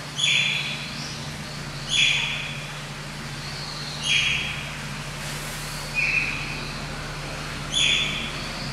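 Eurasian otter calling repeatedly: five short, high-pitched squeaking calls, one about every two seconds.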